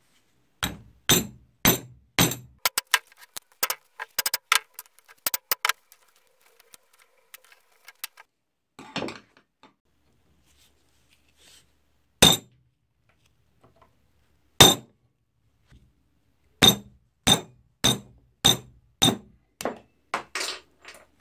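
Hammer blows on a steel punch, driving the pin out of the crank handle of a rusty antique meat grinder clamped in a vise: sharp metallic strikes. A quick flurry comes first, then a pause and two single blows, then a steady run of about two strikes a second near the end.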